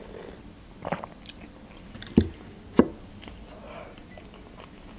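Close-miked eating sounds: a sip from a mug, then soft chewing and mouth noises, with two sharp clicks about half a second apart a little past two seconds in.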